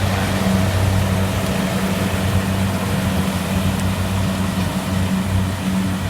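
Kubota DC70 combine harvester's diesel engine running steadily with an even low hum.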